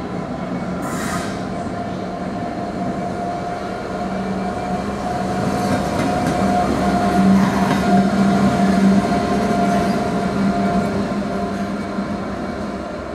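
Class 66 diesel locomotive's EMD two-stroke V12 engine running as the loco passes light engine, with no wagons behind it: a steady drone that grows loudest about seven to nine seconds in as it goes by close, then fades as it pulls away.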